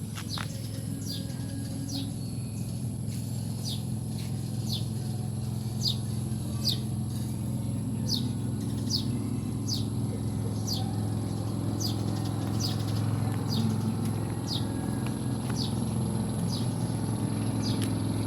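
A bird repeating a short, falling chirp over and over, under a second apart, over a steady low hum.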